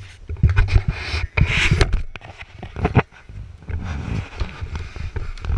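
Close handling noise from an action camera being grabbed and knocked about against couch cushions and a child's body: irregular thumps, scrapes and rubbing with low rumble on the microphone.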